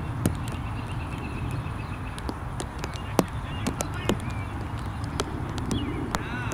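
Open-field ambience: a steady low rumble, scattered sharp clicks and birds calling. There is a short run of repeated high notes about two seconds in, and quick rising chirps near the end.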